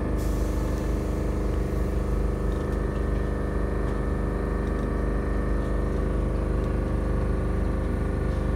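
Steady electric hum and rumble inside a Lisbon tram, one even drone that holds the same level and pitch throughout.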